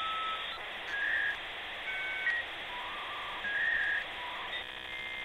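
Channel intro sound effect: short electronic whistle-like tones jumping between different pitches over a steady hiss, turning to a buzzy tone near the end.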